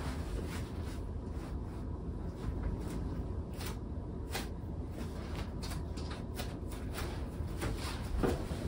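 A series of light clicks and knocks, irregularly spaced, over a steady low rumble, with a slightly louder knock near the end.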